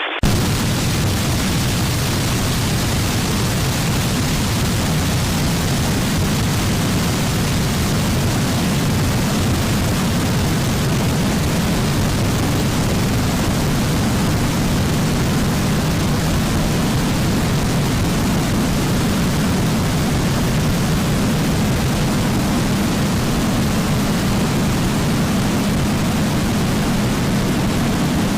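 Loud, steady rushing noise with a heavy low rumble that cuts in abruptly and holds unchanged.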